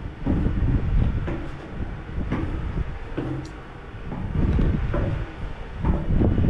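Footsteps going down metal stairs, clanking and thudding about once a second, with wind noise behind.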